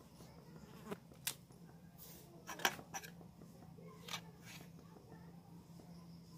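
Faint clinks and scrapes of a spatula against a pan as fried okra is lifted out, a handful of light knocks spread over a few seconds, over a low steady hum.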